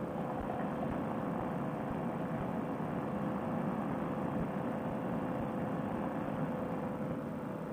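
Fresh Breeze Monster two-stroke paramotor engine and propeller running steadily in flight, a constant drone with a steady hum running through it.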